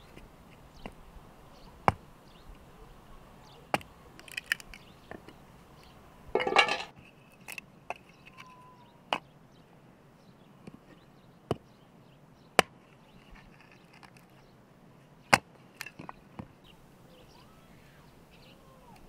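Small hatchet striking and splitting pieces of firewood: separate sharp knocks at irregular intervals of one to three seconds, with one longer cracking burst about six seconds in.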